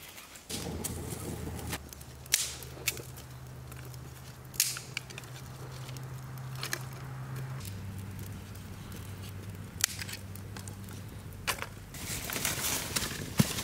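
Small fire of thin dry twigs crackling, with sharp snaps and pops scattered through, coming thicker and faster near the end as the flames take hold.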